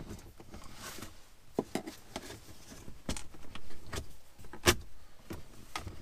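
Plastic center console trim being pried and worked loose from its clips: a scatter of small clicks and knocks with rustling, one louder click about three-quarters of the way in.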